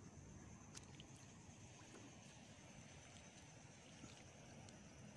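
Near silence: faint outdoor ambience with a thin, steady high-pitched whine and a few faint ticks.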